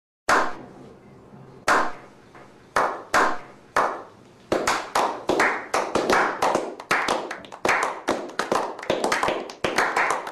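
A slow clap: single hand claps about a second apart, quickening from about four seconds in into steady clapping by a small group of people.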